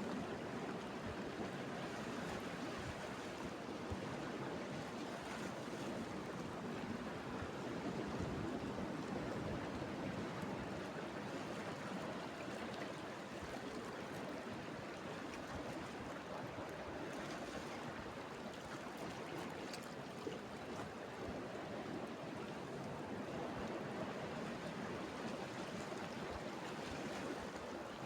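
Steady wash of sea waves on the shore, an even rushing noise with no distinct events.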